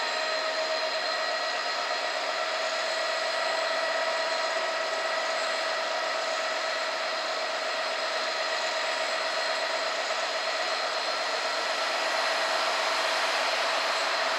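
EWS Class 66 diesel locomotive, with its EMD two-stroke V12, standing with its engine running: a steady whine of several high tones over a hiss.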